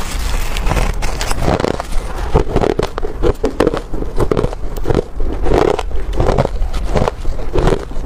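Mouthful of crushed ice being chewed: many sharp crunches in quick succession.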